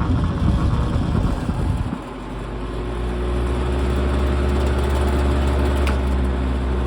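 Vintage Lasco Fanmaster 20-inch box fan running on high, its motor making a rough grinding noise, the sign of a dry, unoiled motor. About two seconds in, the sound settles into a steadier motor hum.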